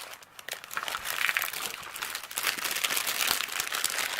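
Packaging crinkling and rustling as it is handled, starting about half a second in, with many small crackles.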